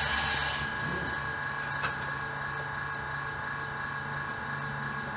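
Hookah water pipe bubbling and hissing as smoke is drawn through the hose, stopping under a second in. A single sharp click comes near two seconds, over a steady low hum.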